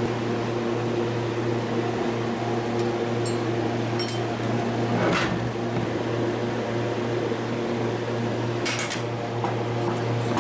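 Steady mechanical hum, with a couple of short metallic clicks and scrapes about halfway through and near the end as a gear puller is fitted onto a compressor pulley.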